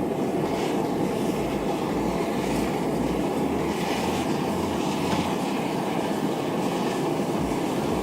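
Steady, even noise of a metal-melting furnace running, with no change in level throughout.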